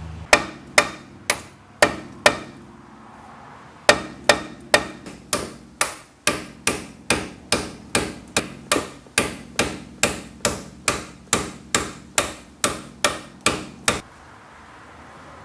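Hammer striking the T of a T-handle reamer, used as a drift against a brake pad retaining pin in a 1988 Pontiac Fiero brake caliper, tapping the pin out. Sharp metallic taps: five quick ones, a pause of about a second and a half, then a steady run of about two taps a second that stops about a second before the end.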